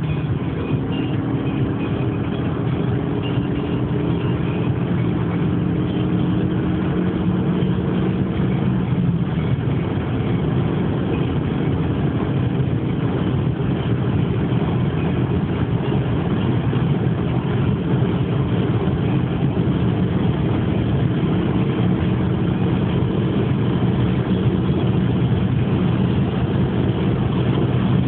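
Audi A3's turbocharged 1.8-litre four-cylinder engine running hard at high speed near its top speed, heard inside the cabin with steady wind and tyre noise. The engine drone creeps slightly up in pitch over the first ten seconds or so, then holds steady.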